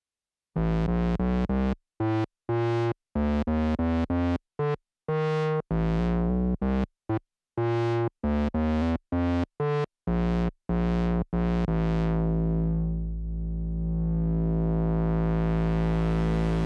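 Synthesizer playing short chopped chords with dead silence between them, then, about twelve seconds in, a held chord that goes dull for a moment and brightens again.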